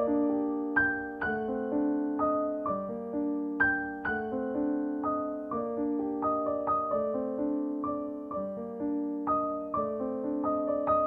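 Background piano music: a calm melody of struck notes over chords, each note fading away after it is played.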